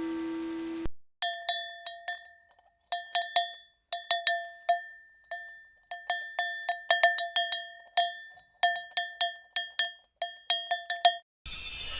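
Metal bell struck again and again in irregular clusters of quick strikes, each ringing briefly at the same pitch, as an alarm effect. Just before it the ringing of a longer tone fades out, and near the end a different, denser alarm sound begins.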